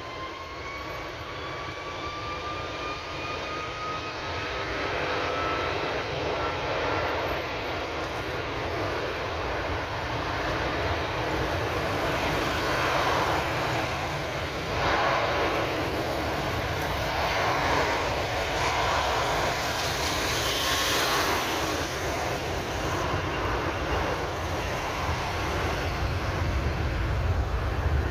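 Airbus A330-300's Rolls-Royce Trent 700 turbofans spooling up, a rising whine over the first several seconds, then a steady jet noise that grows louder as the airliner rolls along the runway for takeoff.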